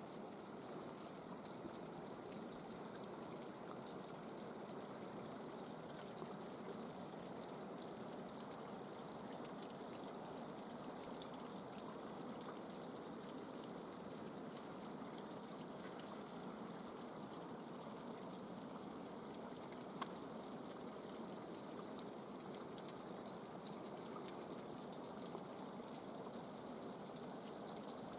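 Water trickling steadily down the icicles of a partly frozen mountain spring, with a couple of faint sharp ticks near the end.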